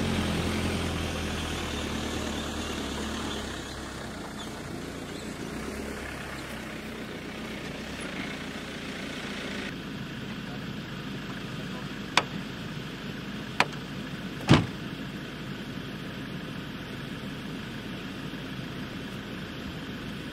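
Land Rover Defender engine running with a low, steady hum that fades out over the first several seconds. About halfway through come three sharp clicks or knocks, the last the loudest.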